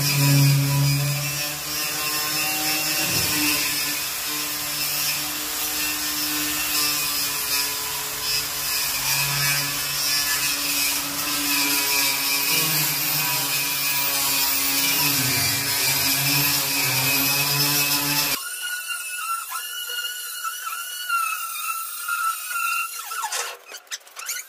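Angle grinder fitted with a wire cup brush, running and scouring rust off a steel truck bed floor. About 18 seconds in it cuts off abruptly and background music takes over.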